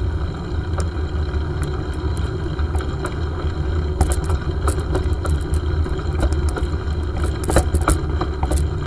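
Bicycle rolling along a gravel path, heard through a handlebar-mounted camera: a steady low rumble from the tyres and frame, with scattered clicks and rattles over bumps that grow more frequent from about four seconds in.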